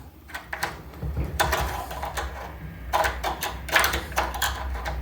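Screw-on rose cover being turned by hand onto a door handle's rose: irregular scraping and small clicks in short clusters.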